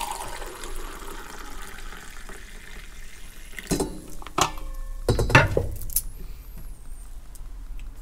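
Coffee poured from a stainless-steel vacuum jug into a ceramic mug, a steady liquid pour filling the mug over about three seconds. It is followed by a few sharp knocks as the jug and mug are handled.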